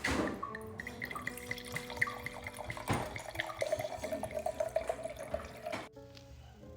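Liquid being poured into a glass for about two seconds, stopping suddenly near the end, over background music.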